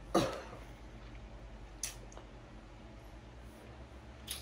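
Quiet room tone with a steady low hum, broken by a short puff of noise just after the start and two faint clicks about two and a half seconds apart.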